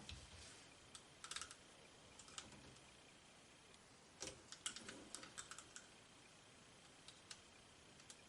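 Faint, irregular clicks and light scratching of small plastic parts being handled, a battery and its wire being worked into a tight plastic camera housing, in two short flurries about a second in and around the middle, with scattered single ticks between.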